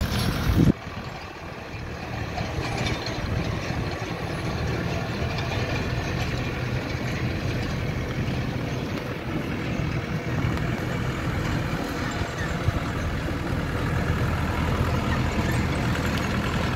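Diesel engine of a green John Deere utility tractor running steadily as it tows an arena groomer over sand. There is a brief loud rustle at the very start.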